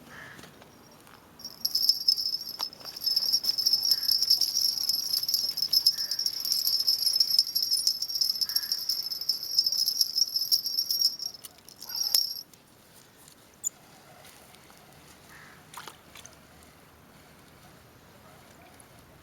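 Fishing reel being cranked to wind in line: a steady, high-pitched rattling whir lasting about ten seconds, then a short second burst of winding.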